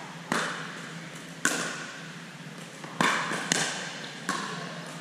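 Pickleball rally: sharp pops of paddles striking the hollow plastic ball, and the ball bouncing on the court, five hits in all, echoing in the large hall.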